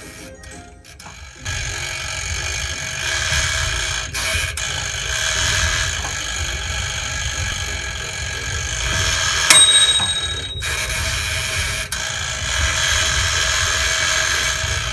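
Toaster oven's mechanical timer dial being turned and reset, its clockwork running steadily, with the timer bell striking once with a short high ring a little past halfway.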